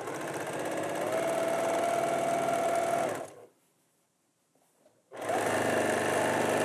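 Electric sewing machine stitching a seam at a steady speed. It stops a little over three seconds in, falls nearly silent for about two seconds, then starts again at the same speed.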